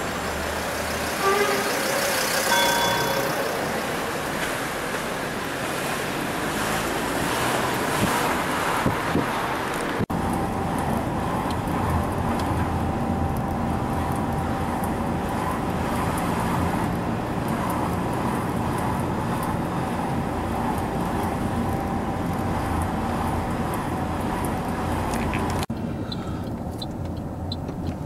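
Road traffic and car noise: street traffic first, then, after a cut, the steady engine and tyre drone of a car driving through town, heard from inside it. Near the end it turns quieter, with faint regular ticking.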